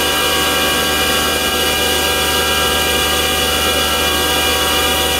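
CNC milling machine spindle driving a 1/4-inch three-flute solid carbide helical end mill, cutting steadily inside the bore of a steel gearbox end. A continuous machining whine with several high steady tones over the cutting noise.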